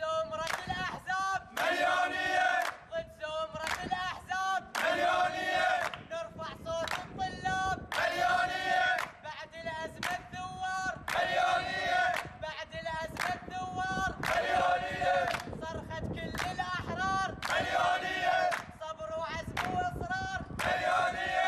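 A group of young men chanting a protest slogan in unison, a rhythmic call for a 'million-man' march (مليونية), with hand-clapping. A loud repeated line comes about every three seconds.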